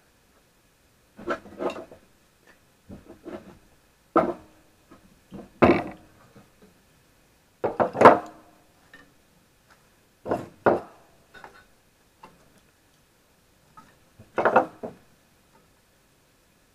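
Sticks of kindling and split firewood set one at a time into the steel firebox of a propane-tank wood stove, each piece knocking against the steel and the wood already inside. About ten irregular knocks, some in quick pairs, with the loudest about eight seconds in.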